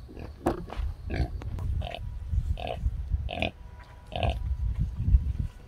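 Pigs grunting: a sow lying with her piglets at the teat, short grunts repeating about every three-quarters of a second, the rhythmic grunting of a nursing sow.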